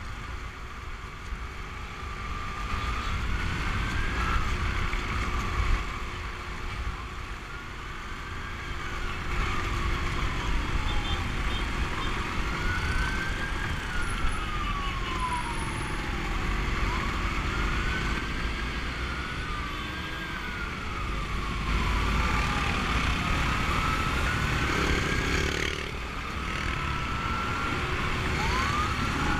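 Siren wailing, its pitch sweeping up and sliding back down about every three seconds, over the steady rumble of motorcycle engines and wind rush.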